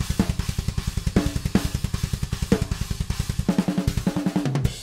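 Soloed China cymbal microphone track from a raw metalcore drum recording, played back. Fast, even double-kick strokes and tom hits bleed through loudly along with the cymbal crashes.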